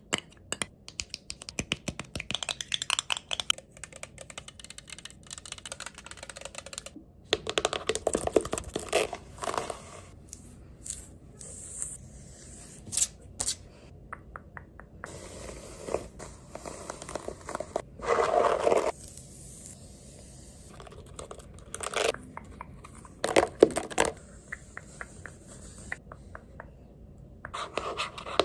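Close-miked ASMR trigger sounds: quick, irregular tapping and scratching on objects, in short bursts that start and stop suddenly.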